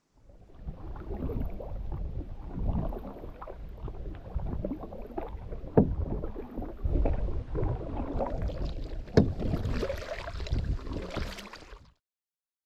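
Paddle strokes in the water: uneven splashing and dripping as a paddle dips and pulls, with two sharp knocks along the way, cutting off suddenly near the end.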